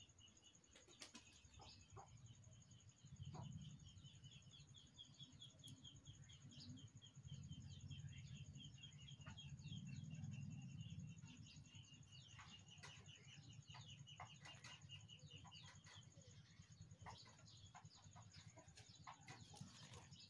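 Faint, high-pitched chirping repeated rapidly and evenly that stops about sixteen seconds in, over a low rumble that swells twice.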